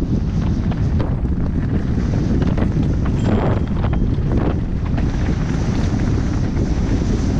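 Wind rushing over the microphone as a mountain bike rolls down a rocky gravel trail, with tyres crunching over loose stones and scattered clicks and rattles from the bike, thickest a few seconds in.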